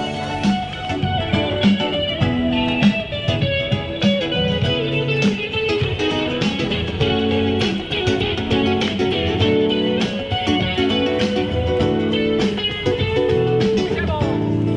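Guitar music: a quickly picked melody of short plucked notes over lower bass notes.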